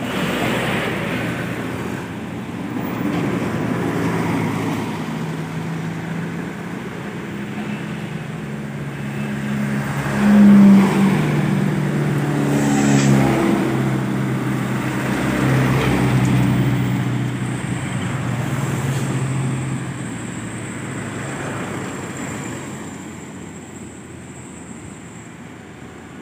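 Engines of trucks and an intercity bus running as they pass close by one after another. The engine note rises and falls, is loudest about ten seconds in, and fades toward the end.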